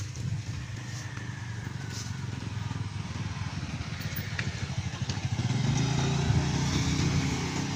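Motorbike engine running close by, growing louder about five seconds in, over the steady sound of road traffic.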